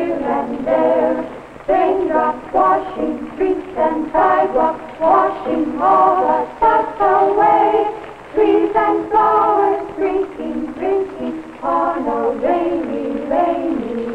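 Sung music: voices singing a melody in short notes and phrases.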